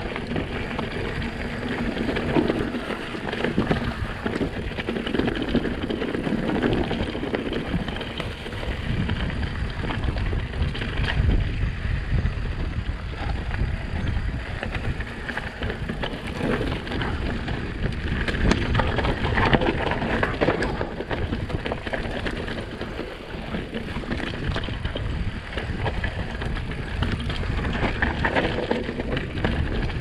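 Mountain bike riding downhill on a dirt singletrack strewn with pine needles and volcanic rock. The tyres roll with a continuous noise, and frequent rattles and knocks from the bike come as it goes over bumps.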